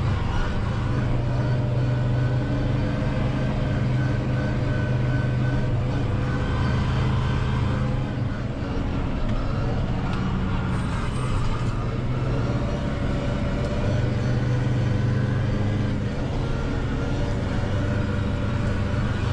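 Valtra N 121 tractor engine running steadily under load while mowing, heard from inside the cab, with the front mower running.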